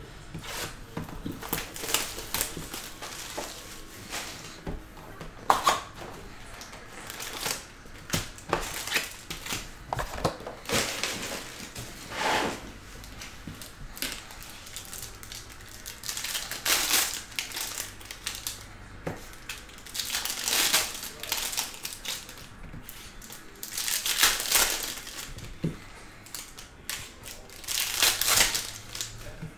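Crinkling and rustling of Panini Prizm basketball trading-card packs' wrappers and their cardboard hobby box being handled, in irregular bursts.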